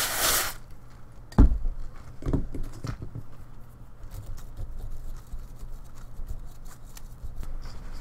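A short hiss of aerosol flux remover sprayed onto a circuit board, a loud thump about a second and a half in, then a couple of softer knocks. After that, light scratching and ticking as a brush scrubs the wet board on a paper towel.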